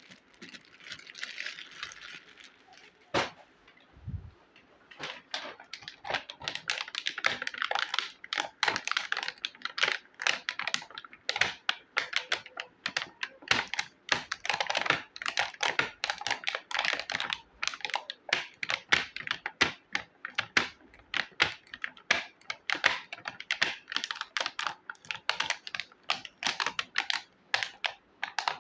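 Small plastic miniature kitchen toy pieces clicking and tapping as they are handled, unpacked and set down, a rapid irregular run of light clicks. A brief rustle comes first, and one sharper click about three seconds in.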